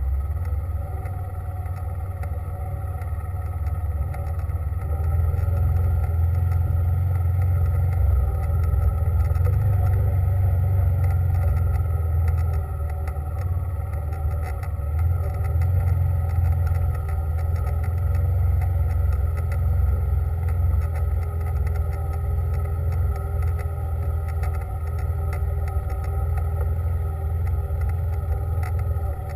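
A vehicle driving, with a steady low rumble of engine and road noise that grows a little louder about five seconds in.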